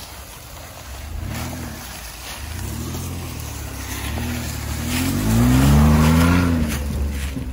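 Chevrolet Colorado pickup's engine revving in repeated surges, each rising and falling in pitch, as the truck pulls through mud. The longest and loudest rev comes about five seconds in.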